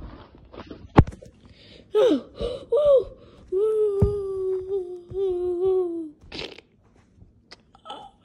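Two soft thumps about a second apart as plush toys are bounced on a leather couch, then a child's voice slides up and down and holds one long wordless 'ooo' for about two and a half seconds, ending with a breath.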